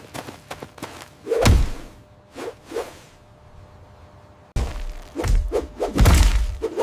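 Fight sound effects: whooshes and thudding hits, a heavy one about a second and a half in, a lull, then a sudden run of louder, deep hits from about four and a half seconds in.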